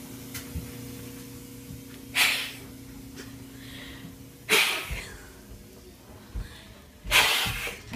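Three short breathy rushes of noise, about two and a half seconds apart, with a few faint soft thumps in between over a low steady hum.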